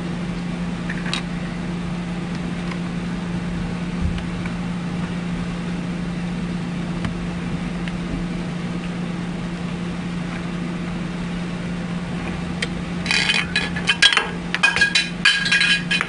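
Steady low hum, then from about three seconds before the end a quick run of sharp metallic clinks and rattles from small syringe-pump parts being handled during reassembly.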